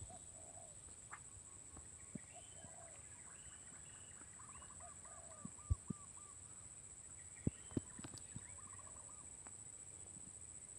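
Faint wild birdsong from a forest edge: a mix of birds, one giving a quick run of repeated arched notes twice, others with scattered higher chirps and lower calls. A few soft knocks come through, the loudest about halfway.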